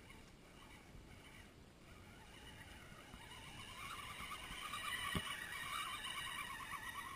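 Electric motor and gear whine of an Axial Wraith RC rock crawler, wavering in pitch with the throttle and growing louder as it drives through the puddle toward the microphone. One sharp click about five seconds in.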